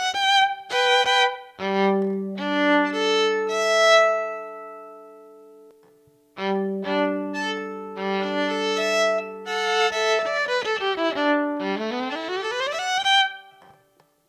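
Yamaha SV-150 electric violin played through one of its built-in sound effects: a fast rising run, then held double stops that fade away with a long ringing tail about six seconds in. After a short break it plays another passage of chords and a fast rising run, then stops near the end.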